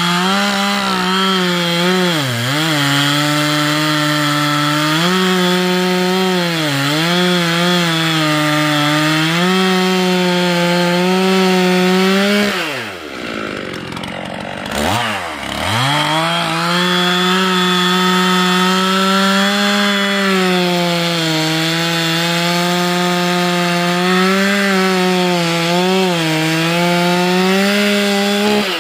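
Stihl chainsaw running at full throttle while cutting through a log, its pitch dipping each time the chain bites into the wood. About halfway through it drops to idle for a couple of seconds, revs back up for the next cut, and falls to idle again at the very end.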